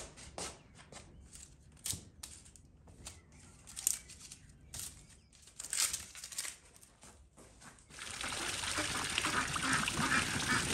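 Light scrapes and knocks from handling, spaced out over several seconds. About eight seconds in, water suddenly starts running or pouring steadily and keeps going.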